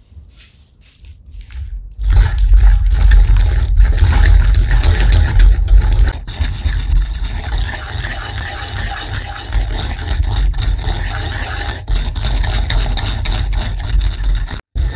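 Wooden pestle grinding and stirring in a suribachi, a ceramic mortar with a ridged inside, scraping continuously as miso is worked into a paste of ground shiso leaves. The grinding starts about two seconds in and goes on loudly with a few brief pauses.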